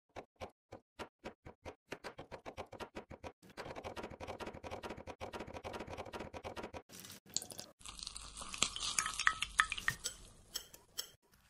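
A metal fork pricking the rind of a raw slab of pork belly, punching the holes that let the skin puff up crisp in the air fryer: separate sharp taps that quicken into rapid tapping. Near eight seconds in this gives way to a metal spoon stirring and clinking in a small ceramic bowl of liquid.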